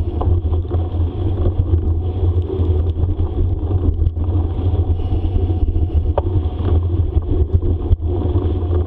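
Steady low wind rumble on the microphone with tyre and trail noise from a bicycle riding fast along a dirt trail.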